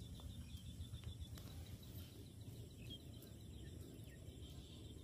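Faint outdoor ambience: a steady low rumble with faint high-pitched chirping, clearest in the first couple of seconds.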